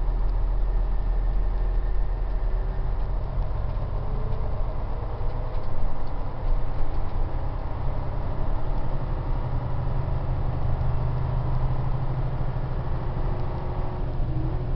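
Airport coach's diesel engine running, with road noise, heard inside the passenger cabin while driving: a steady low drone whose pitch rises and falls slightly.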